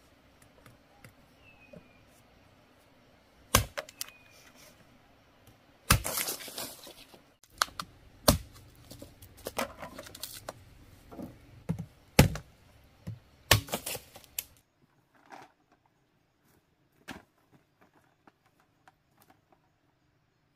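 A series of loud, sharp cracks and knocks, about six over ten seconds, with a crackling rustle just after the second, then only a few faint ticks.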